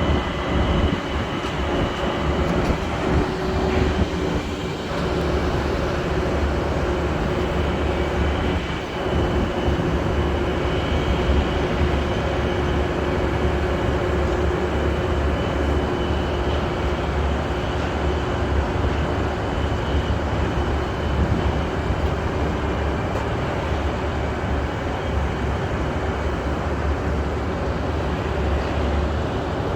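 Heavy machinery running steadily: a continuous low rumble with a steady droning hum on top.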